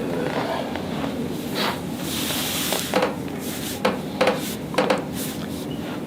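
Hands rubbing and working over a patient on a chiropractic treatment table: steady rubbing with scattered soft knocks and clicks, and a brief hiss about two seconds in.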